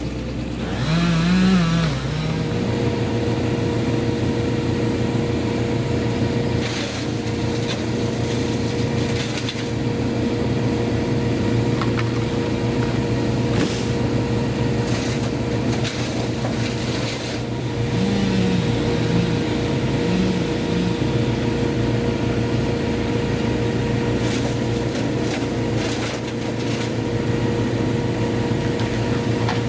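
A petrol engine of tree-removal equipment running steadily at speed, its pitch wavering briefly about a second in and again around eighteen to twenty seconds in, with a few short clatters over it.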